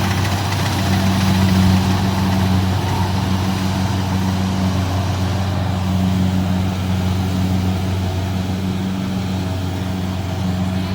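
Kubota DC-70 combine harvester's diesel engine running steadily under load with a continuous low hum, while the machine works a rice field.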